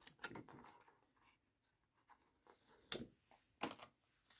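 Faint handling of paper planner pages and sticker sheets: soft rustling just after the start, then a sharp tap about three seconds in and a couple of softer taps shortly after.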